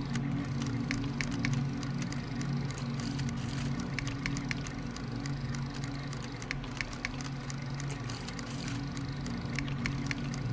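A steady low electronic hum with irregular faint clicks and crackles scattered through it.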